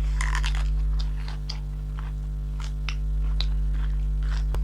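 Steady low electrical hum, with scattered short clicks and smacks of people eating and chewing.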